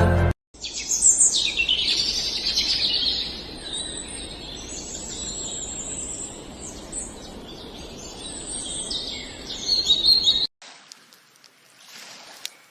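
Birds chirping and singing, many quick high calls over a steady outdoor hiss. The birdsong cuts off suddenly about ten seconds in, leaving a much fainter ambience.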